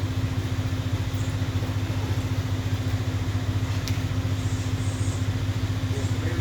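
Husqvarna 353 two-stroke chainsaw idling steadily with a fast, even pulse, just after being started.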